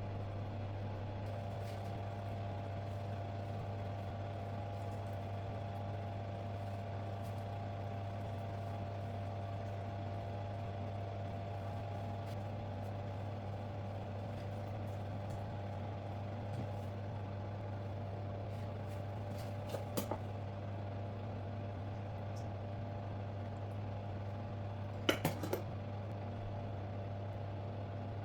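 Steady mechanical hum of a running kitchen appliance, with short clinks of dishware about 20 and 25 seconds in.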